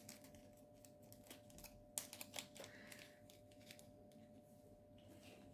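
Near silence with a few faint, sharp plastic clicks from small diamond-painting drill containers and bags of resin drills being handled, a quick cluster of them about two seconds in.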